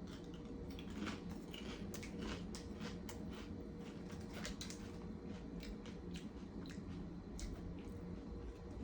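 Close-up crunching and chewing of a Doritos Tangy Tamarind tortilla chip: a run of irregular sharp crunches, thickest in the first half and thinning out toward the end.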